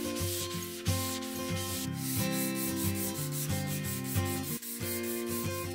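Hand sanding of a wooden cutting board's edge with a sanding sponge: quick back-and-forth rubbing strokes, several a second, heard over background acoustic guitar music.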